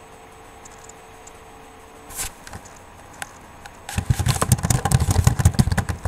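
Close handling noise: a single knock about two seconds in, then from about four seconds a quick, loud run of rustling clicks and thumps, over a faint steady hum.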